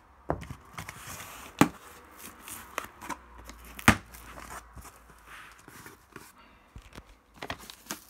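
Cardboard shipping box being opened by hand: its flaps are pulled and folded back with tearing and rustling of cardboard, broken by a few sharp knocks, the loudest about four seconds in.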